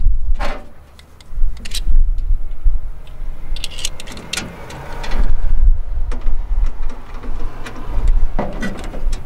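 Scattered clicks and taps of a screw being started by hand with a screwdriver into a metal tailgate lockbox, over a wavering low rumble.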